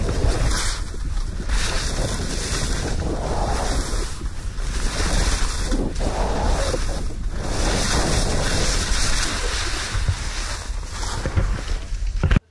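Heavy wind buffeting an action camera's microphone while skiing fast downhill, mixed with skis hissing and scraping over snow in surges as the turns come. The sound cuts off suddenly near the end.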